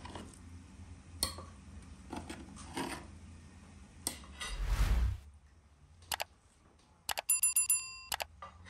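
Metal serving tongs clicking against a large pan as food is lifted. About halfway through comes a rushing whoosh, then near the end the clicks and bell-like ringing tone of a subscribe-button sound effect.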